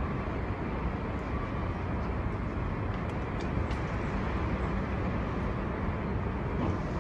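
Storm wind blowing hard in a steady, dense rumble, with a few faint ticks over it.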